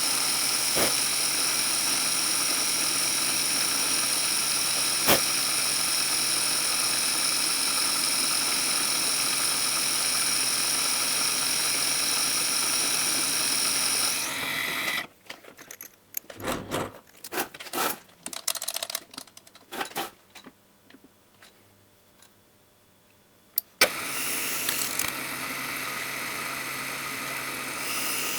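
Machine-tool motor running steadily with a high whine, cutting teflon stock. It stops about halfway through, leaving a few knocks and handling sounds, and a machine starts up again near the end.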